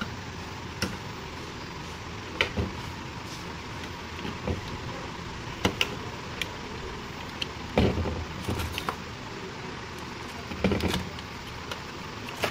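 Scattered clicks and light knocks of a DDR4 RAM module being handled and fitted into a motherboard memory slot, over a steady background hiss.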